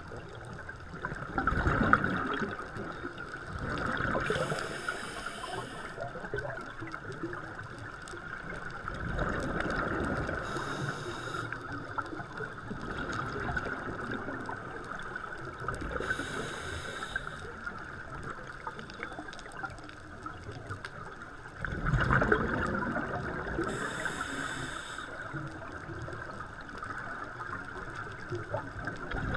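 Scuba breathing through a regulator under water: a hiss at each inhalation about every six seconds, alternating with the bubbling rumble of exhaled air.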